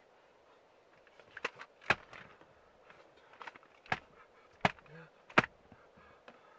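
A hollow plastic bottle smacking down onto a squishy toy frog on a leather car seat: about five sharp hits at uneven intervals, with a few softer knocks between them. The loudest hits come about two seconds in and near the end.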